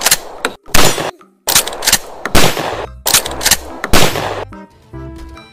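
About six loud shotgun blasts in quick succession over four seconds, each with a short ringing tail, as a toy pump-action shotgun is fired. Music comes in near the end.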